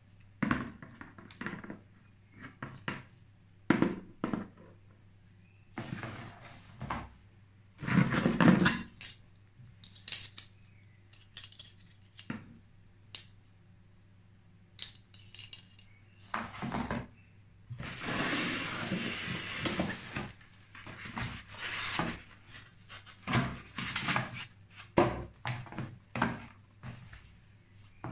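Handling noises: irregular clicks, knocks and rattles as the coiled air hose with its metal couplers and the power lead with its battery clamps and lighter-socket plug are picked up and moved, with a longer rustle of about two seconds around two-thirds of the way through. The compressor is not running.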